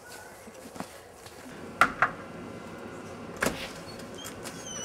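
Door clunks: two sharp clicks close together about two seconds in, then a stronger one about a second and a half later.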